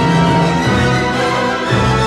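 Background music: orchestral-style theme music, sustained chords that change about once a second.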